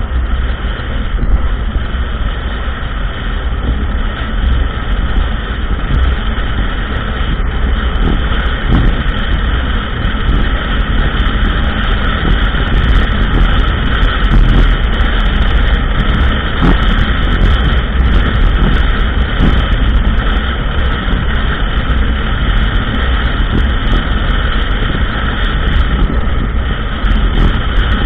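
ATV engine running steadily while the quad is ridden along a trail, with scattered short clicks and rattles over the engine noise.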